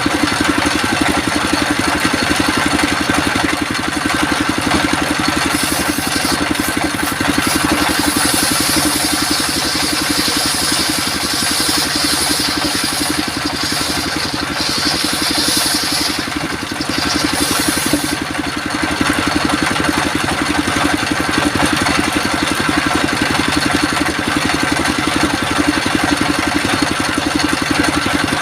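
Engine-driven circular sawmill running steadily. From about six seconds in to about eighteen, a higher hiss rides over it as the saw cuts through coconut wood.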